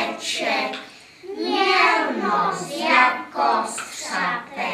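A group of young children singing together in unison, without accompaniment, in short phrases.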